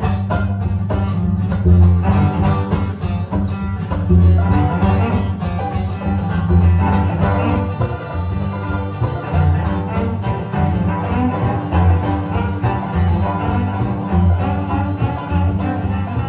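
A live string band playing an instrumental passage: bowed cello over picked mandolin and acoustic guitar, with an upright bass laying down strong, repeating low notes.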